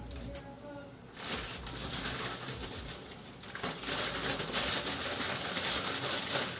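Rustling and scraping of a bleach-powder container being opened and handled, in two long stretches of hiss-like noise.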